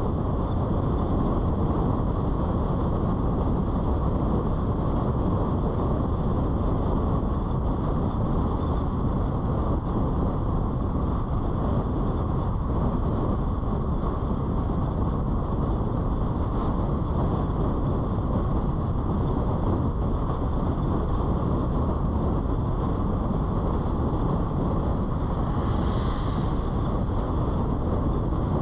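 Steady road noise of a car driving: tyres rolling on asphalt and wind rushing past, an even rumble that holds without change. A brief faint high sound comes near the end.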